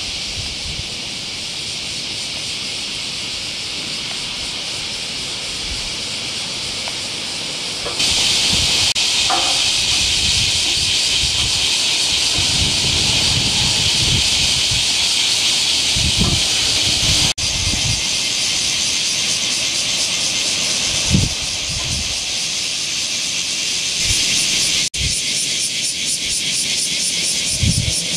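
A steady high-pitched hiss that gets louder about eight seconds in, with brief breaks at about seventeen and twenty-five seconds and a fast pulsing texture near the end.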